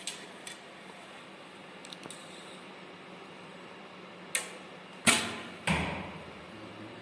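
An archery bow being shot. A sharp click a little over four seconds in is followed by two louder thuds with short ringing tails, about five and six seconds in: the string's release and the arrow.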